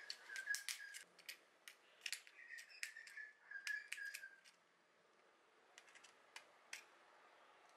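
Faint clicks and short high squeaks of small M3 machine screws being driven by hand with a screwdriver into a 3D-printed plastic part. They come in clusters over the first four and a half seconds, with a few more clicks about six seconds in.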